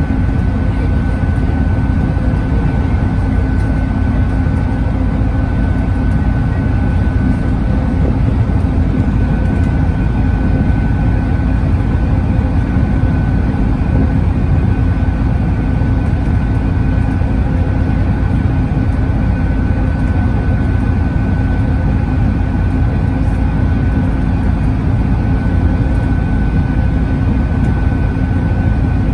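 Cabin noise on board a Volvo B5TL double-decker bus cruising at a steady speed: the four-cylinder diesel's drone and tyre and road roar, with a steady high whine running through it.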